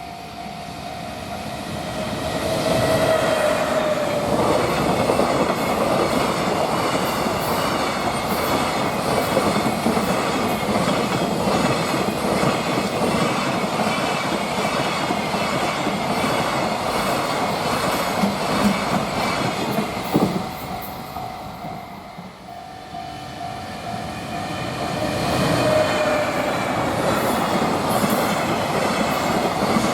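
Two freight trains passing one after the other at a level crossing, the wagons' wheels clattering over the rail joints in a long, loud run. Between the trains the level-crossing warning bell sounds as a steady tone.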